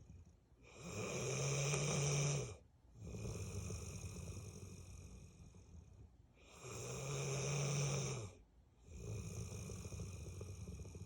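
Bullmastiff snoring in deep sleep: two loud snores about two seconds long each, some six seconds apart, each with a low droning note, and softer, noisier breaths between them.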